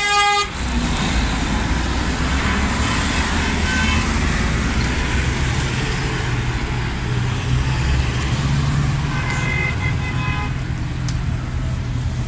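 Road traffic rumbling in a queue of slow-moving cars. A car horn blares at the start and cuts off about half a second in, and more distant horns sound later, one held for about a second.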